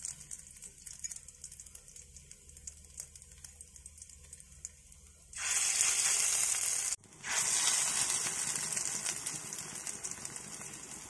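Hot oil in a steel pan crackling faintly, then loud sizzling from about five seconds in as patties of ground coconut and rice paste go into it to fry. The sizzle cuts out for an instant and resumes, easing slightly toward the end.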